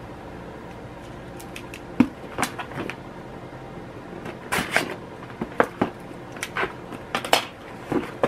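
Scissors cutting open a cardboard box, and the box being handled: a series of irregular sharp clicks, snips and scrapes, the loudest about two seconds in.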